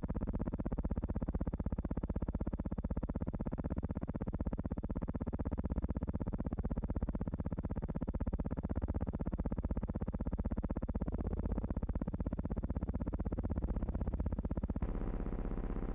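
Synthesizer-like background music: a dense, steady electronic drone with a fast pulsing texture that changes tone abruptly near the end.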